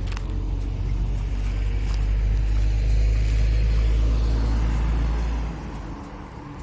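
A motor vehicle passing on the road: a low rumble that builds to its loudest about three seconds in and drops away after about five and a half seconds.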